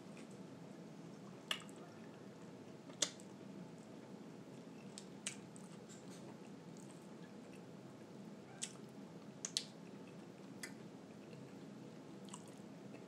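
A person chewing a bite of soft taco close to the microphone, with about seven sharp, wet mouth clicks scattered through it. The loudest click comes about three seconds in, and two come close together about nine and a half seconds in.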